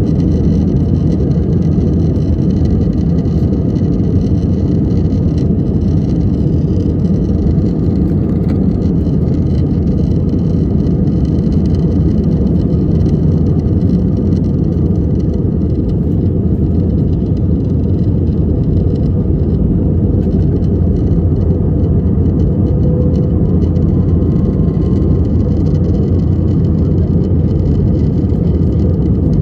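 Airbus A320-200 jet engines at takeoff thrust, heard from inside the cabin over the wing: a loud, steady, unbroken noise through the takeoff roll, lift-off and initial climb.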